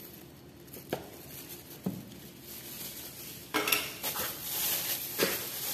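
A hand in a plastic bag kneading kibbeh dough of bulgur wheat and ground beef in a plastic bowl: a few light knocks at first, then from a little past halfway a louder, steady rustle and squish of the plastic bag and the crumbly mix.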